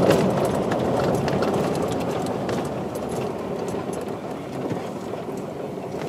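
Vehicle driving on a dirt road, heard from inside the cabin: steady tyre and road noise with scattered small clicks and rattles, easing gradually as it slows.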